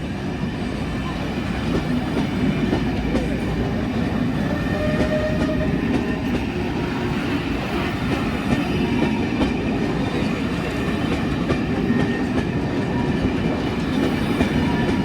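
Train running past, a steady rumble that grows a little louder over the first couple of seconds and then holds.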